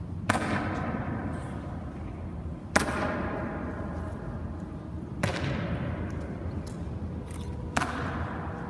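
Ceremonial honour guard's boots striking a stone floor in a slow, measured march step, one heavy stamp about every two and a half seconds, four in all. Each stamp rings on in a long, reverberant echo.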